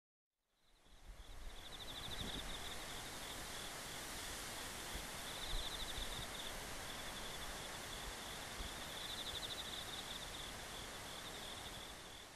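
Outdoor field ambience that fades in within the first second: a steady hiss with insects trilling high and fast, swelling in phrases every few seconds.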